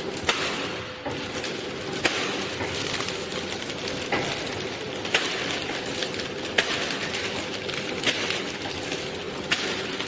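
Horizontal flow-wrap packing machine running with a steady motor and conveyor hum, and a sharp clack every second or two as the cross-sealing and cutting jaws close on each bag.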